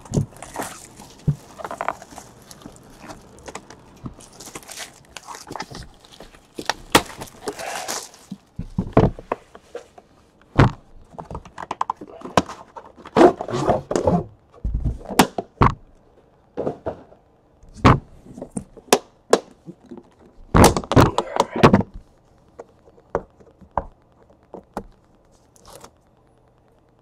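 Hard-shell card box case being handled: scattered knocks and sharp clicks, with stretches of scraping handling noise and a quick run of knocks about three-quarters of the way through.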